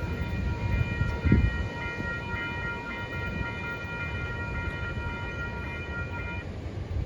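Train passing with a low rumble and a steady high-pitched ringing of several tones that cuts off about six seconds in. A low thud sounds about a second in.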